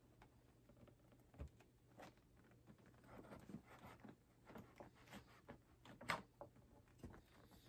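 Faint scratching and scraping with a few small clicks as scissors work at the seal of a cardboard gift box; the sharpest click comes about six seconds in.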